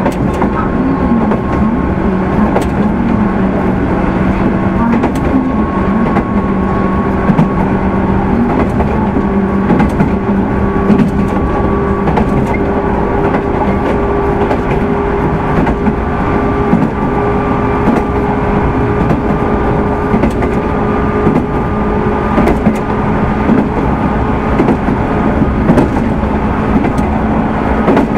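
Inside a JR 205 series 600 subseries electric motor car (MoHa 204-602) running along the line: the whine of its traction motors with externally mounted cooling fans slowly rises in pitch as the train gathers speed. It sits over a steady rumble of wheels on rail, with scattered sharp clicks.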